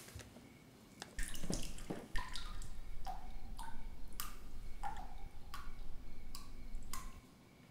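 Water dripping from a chrome bathtub mixer tap: a string of separate plinks, one to two a second, each dropping slightly in pitch, over a low rumble. The dripping starts about a second in and stops shortly before the end.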